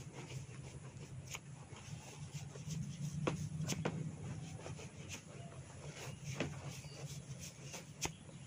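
Hair cracking: sharp little snaps from the scalp as tufts of hair are tugged, about half a dozen clicks at irregular intervals over a low steady hum.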